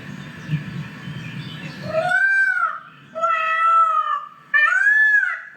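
Three drawn-out animal calls, each about a second long, rising then falling in pitch.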